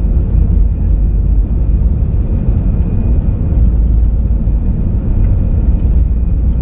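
Airbus A319 cabin noise: a steady low rumble of the jet engines and airflow, with a faint thin whine above it.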